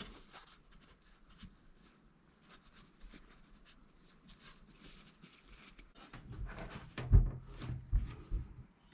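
Handling sounds: light clicks and rustles, then a cluster of low thumps starting about six seconds in, as an object is moved and knocked against a surface.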